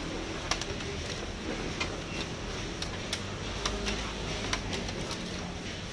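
Knife slicing guava on a plastic cutting board, the blade striking the board in irregular sharp clicks, about two a second.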